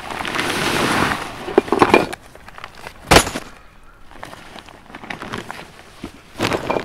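Nylon hiking backpack being handled and unpacked: fabric rustling and scraping for about two seconds, a sharp knock about three seconds in, then quieter handling and another short rustle near the end.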